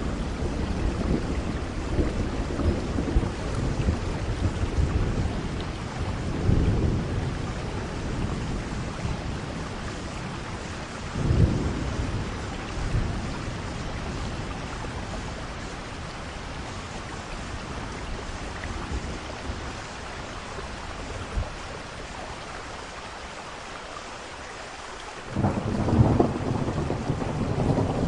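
Heavy rain falling steadily, with thunder rumbling several times: a sharper clap about eleven seconds in, then a quieter lull of rain before another loud roll of thunder near the end.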